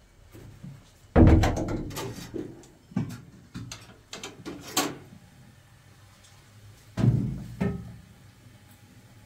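Metal gas cylinder being shifted and tilted on a hard floor: a loud bump about a second in, a string of knocks and clanks, then two more bumps near the end.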